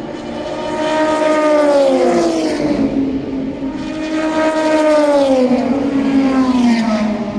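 Two endurance race cars passing one after the other at speed, each engine note loud as it goes by and then dropping in pitch as the car moves away.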